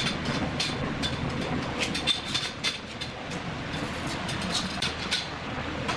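Irregular metallic clicks and clanks of steel ceiling rails being fitted onto hanger rods, a dozen or so sharp knocks at uneven spacing.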